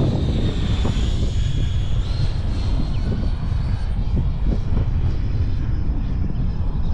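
Electric ducted fan of an E-flite Viper 90 RC jet whining in flight, its pitch dipping about a second in and stepping up about two seconds in. Heavy wind buffeting on the microphone underneath.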